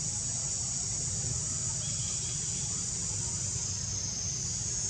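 Steady, high-pitched buzzing of an insect chorus over a low, steady rumble.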